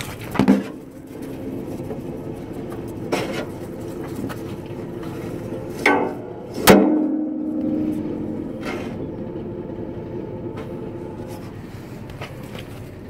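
Tractor-mounted straw chopper running with a steady drone, broken by a handful of sharp metallic knocks. The loudest knock comes about halfway through and leaves a short ringing tone.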